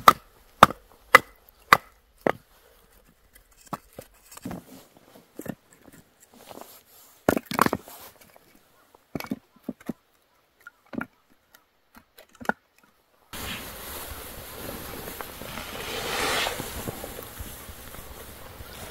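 Split firewood pieces being knocked together and set upright in packed snow: a series of sharp wooden knocks, coming quickly in the first couple of seconds and then more sparsely. About two-thirds of the way through the knocks stop and a steady rushing noise takes over.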